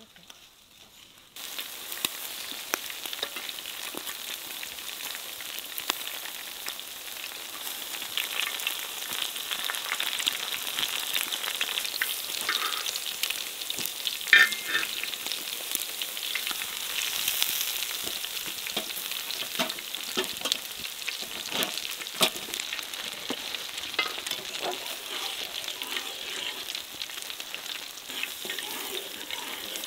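Sturgeon steaks sizzling in a wire grill basket over hot charcoal, a steady crackle full of small pops. The sizzle starts suddenly about a second and a half in, and one sharper pop stands out about halfway through.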